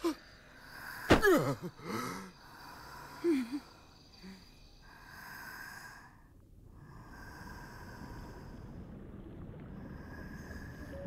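A sleeping man gives a loud snort about a second in, falling in pitch, followed by a couple of smaller breathy sounds. From a little before halfway, a soft, steady underwater ambience takes over.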